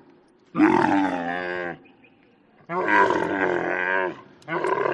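Camel calling: two long, rough, pitched calls of about a second or more each, separated by short pauses, and a third call starting near the end.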